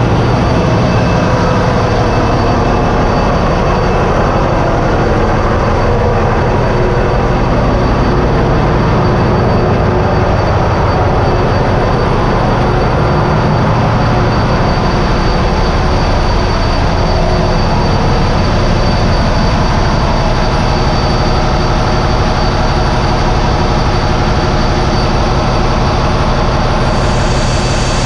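Loud, steady engine-room din of a ship's running diesel machinery, with a constant high whine over it. Near the end the hiss grows brighter beside a HiMSEN diesel generator engine.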